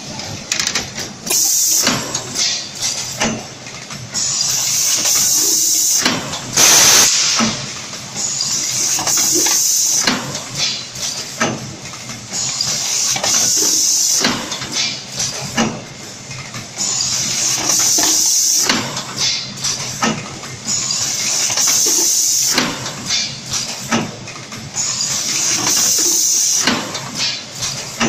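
BM SF 4 automatic blow molding machine cycling: a loud hiss of compressed air about every four seconds, each lasting a second or two, as bottles are blown and the air is let out. Short clicks and knocks from the robot hand and mould clamp come between the blasts.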